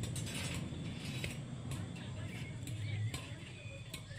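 Scattered light metallic clicks and clinks of steel tie wire being twisted by hand around rebar to fasten a reinforcement cage, over a steady low hum.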